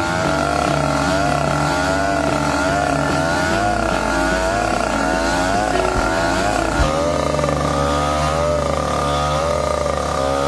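Petrol-engined rail grinder running at high speed with its abrasive wheel grinding the steel rail head. The engine's whine keeps rising and falling slightly as the machine is worked back and forth under load.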